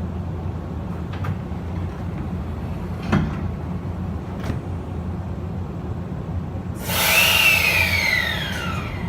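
Interior running sound of an E653 series 1100-subseries electric train: a steady low rumble with a few clicks. About seven seconds in, a sudden louder rush of noise sets in, carrying a whine that rises briefly and then falls steadily in pitch.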